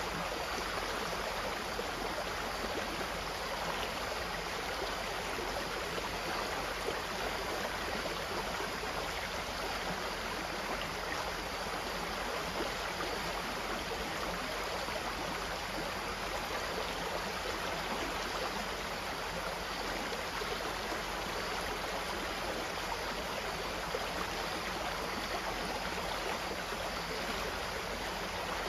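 Stream of water running steadily over rocks, an even rushing and gurgling without breaks.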